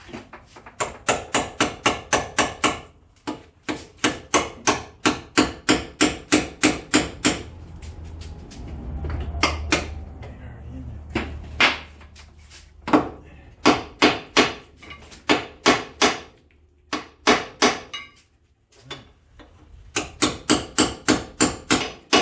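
Hammer blows on a car's steel suspension knuckle, struck to shock a stuck lower ball joint loose. The blows come in rapid runs of about four a second, with short pauses between runs. A low rumble swells for a couple of seconds midway.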